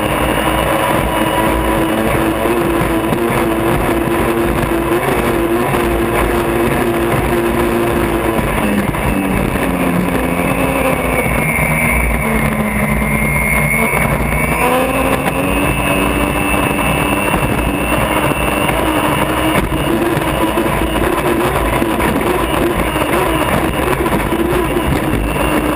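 Unlimited hydroplane's turbine engine running at racing speed, heard from inside the cockpit over a steady rush of wind and water. Its pitch dips for several seconds near the middle, then climbs back.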